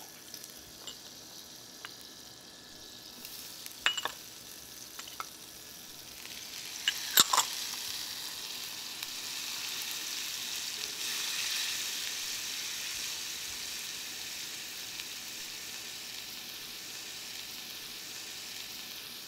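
Minced shallots and garlic sizzling in melted butter in a cast iron skillet while being stirred with a silicone spatula. There are a few sharp knocks around four and seven seconds in, and after them the sizzle grows louder and holds steady.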